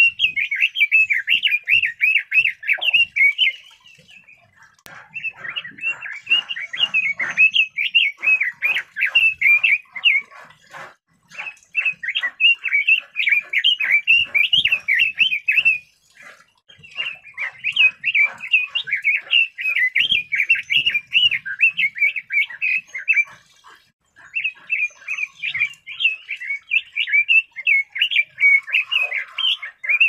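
Red-billed leiothrix singing: five long phrases of rapid, high notes, each several seconds long, with short pauses between them.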